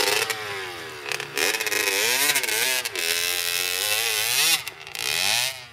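Dirt bike engine revving up and down again and again, its rear wheel spinning in loose dirt as the bike struggles for grip on a steep climb while it is pushed uphill.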